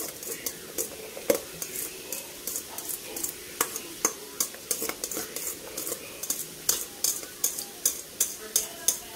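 Diced onion and bell pepper being tossed by hand in a stainless steel mixing bowl: an irregular run of crisp clicks and rattles, several a second, as the pieces strike the metal.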